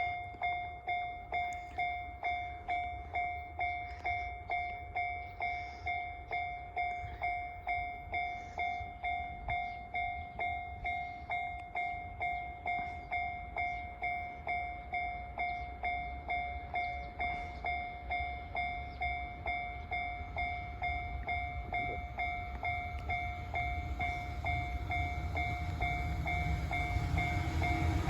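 Japanese level crossing warning bell ringing at a steady two strikes a second while the crossing is closed, with a low rumble building over the last few seconds as the freight train approaches.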